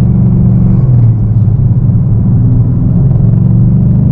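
2017 Mustang GT's 5.0 V8 through an MBRP Race catback exhaust at highway cruise, heard inside the cabin as a steady, loud, low drone. The drone shifts slightly in pitch about a second in, then settles.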